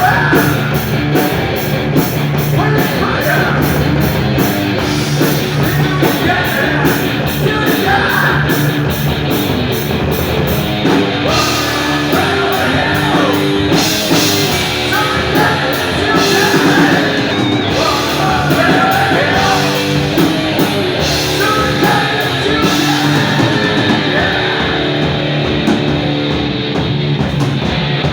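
A rock band playing live with distorted electric guitar, bass and drums, with singing.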